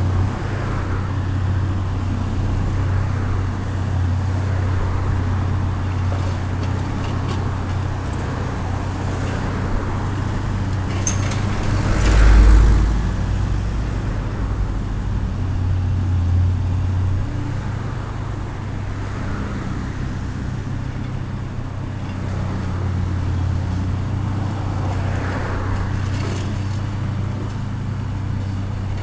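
The diesel engine of a heavy demolition machine running steadily with a low hum, swelling into a louder low rumble for a moment about twelve seconds in, with some faint clatter.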